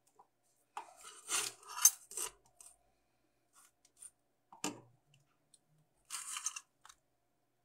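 Printed paper sheet being handled on a tabletop: short rustling, scraping rubs about a second in and again near six seconds, with a single sharp knock in between.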